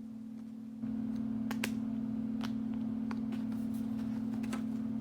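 A steady low hum that gets louder about a second in, with a few scattered light clicks over it.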